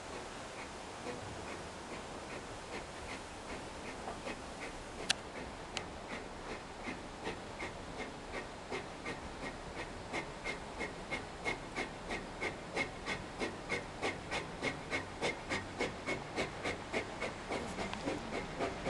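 Paddle steamer Oscar W's steam engine working in an even beat of about three exhaust chuffs a second, growing louder about halfway through as the boat gets under way. One sharp click is heard about five seconds in.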